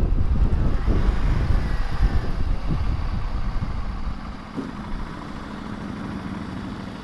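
Wind buffeting on the microphone over a motorcycle engine as the bike slows. About four seconds in, the wind noise drops away, leaving the engine running quietly at low speed.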